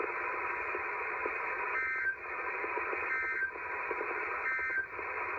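Static hiss from a NOAA Weather Radio receiver. Three short Emergency Alert System end-of-message data bursts cut through it, each a brief two-tone digital squawk, about 1.3 seconds apart. The bursts mark the end of the tornado warning broadcast.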